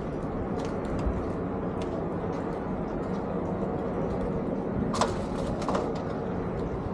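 Outdoor ambience: a steady low rumble and hiss, with a few sharp clicks or knocks about five seconds in.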